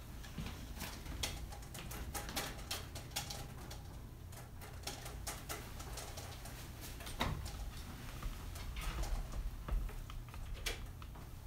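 Light clicks and taps at an irregular pace over a low steady hum, from a person moving about a kitchen and handling things, with a sharper knock about seven seconds in and another near the end.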